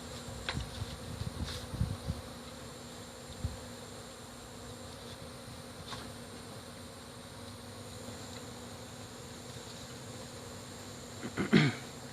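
Honey bees from an opened wall colony buzzing steadily in a dense hum. A few knocks come in the first couple of seconds, and a brief louder burst comes near the end.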